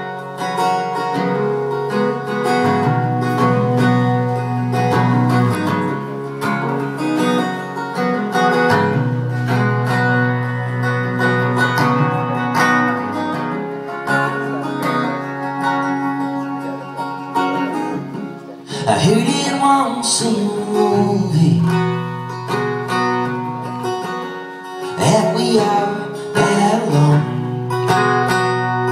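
A live band plays a country-rock song: strummed acoustic guitar with electric guitar and drums. The playing gets fuller and brighter about two-thirds of the way in and again near the end.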